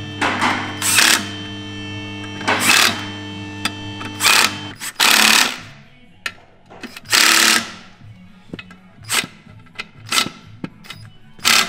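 Cordless impact driver running in the clutch pressure-plate bolts in short, irregular bursts, each under a second, about seven in all.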